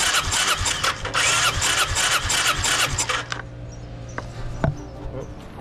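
Electric starter cranking a Kawasaki VN800 V-twin that does not catch: a spark test, with a spark plug pulled and held against the engine to check for spark. Cranking pauses briefly about a second in, resumes and stops about three seconds in, followed by a couple of faint ticks.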